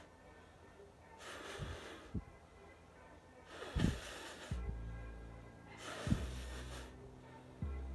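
Instant chicken ramen noodles being slurped off a fork: three drawn-out slurps about two and a half seconds apart. Background music with a low bass line comes in a little past halfway.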